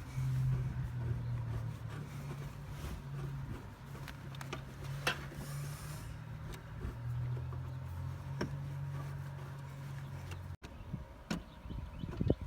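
A small motor hums steadily, with a few light metallic clicks of tools on the engine bracket. The hum cuts off abruptly near the end.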